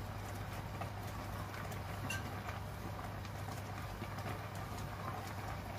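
Rice and chicken broth bubbling in a clay pot over a gas flame, with a few light clicks of chopsticks stirring against the pot, over a steady low hum.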